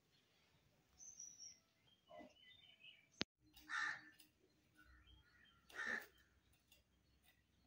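A crow cawing twice, about two seconds apart, over a quiet background, with a single sharp click shortly before the first caw.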